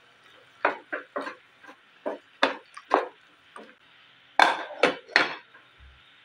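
Cookware clatter: about ten short, sharp knocks and clinks on a metal saucepan. The loudest cluster, three knocks about four and a half seconds in, comes as a glass lid is set on the pan.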